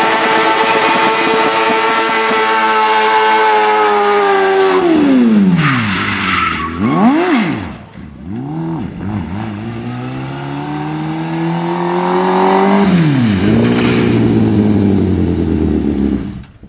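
Suzuki Hayabusa inline-four motorcycle engine in a Smart car, held at high revs, then dropping and blipped up and down several times with bursts of tyre squeal while drifting. It climbs steadily again, drops near the end and fades out.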